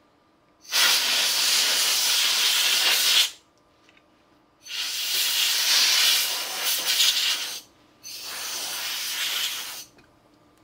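Compressed air hissing from a hose nozzle in three blasts of two to three seconds each, the last one a little quieter.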